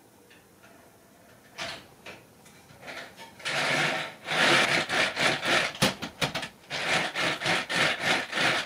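A plywood carriage on an overhead wooden rail, pushed by hand along the rail. A single knock comes about one and a half seconds in, then from about halfway a loud, rattling run of rapid, uneven surges as the carriage travels along the wood.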